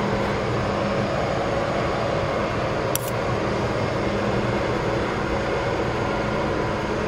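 Steady mechanical hum and rushing noise with a low steady tone, like a running ventilation or air-conditioning unit. A brief click sounds about three seconds in.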